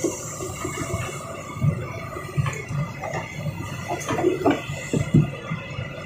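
Excavator loading rocks into a dump truck: a steady low machine hum with irregular knocks and clunks, which come thicker and louder in the second half.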